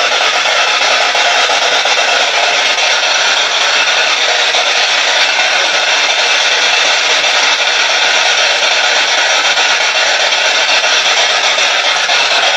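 Loud, steady hiss of static.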